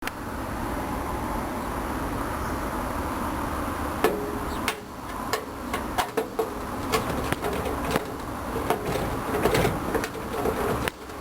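Steady buzzing hum. From about four seconds in, irregular clicks and knocks of hard parts being handled, which fits work on a microwave oven being taken apart.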